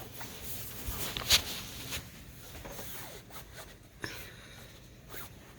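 Rustling and scraping of clothing and shoes being put on, with scattered small clicks and one sharp knock a little over a second in.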